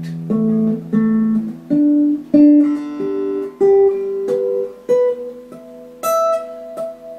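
Snap Dragon folding travel guitar played through an amplifier for an intonation check. Ten single notes are plucked: on each string the 12th-fret harmonic and the fretted 12th-fret note are played in turn at the same pitch, pair by pair rising across five strings, showing the intonation is spot on.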